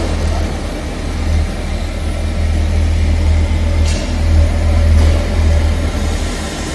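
Steady low rumble of a steam boiler running under test, with a short hiss about four seconds in.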